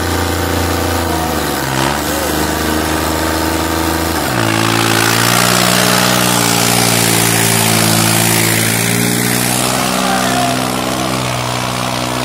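New Holland 3630 tractor's diesel engine running steadily, then about four seconds in it picks up revs and labours under heavy load while dragging a disc harrow, hard enough to lift the tractor's front wheels.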